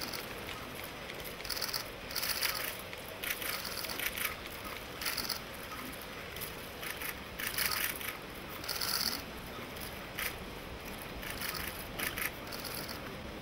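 Camera shutters clicking in rapid bursts, many separate bursts one after another, over a steady background hiss.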